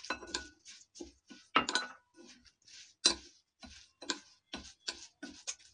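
Hand mixing semolina with lassi in a glass bowl: a run of irregular light clicks and taps against the glass, a few a second.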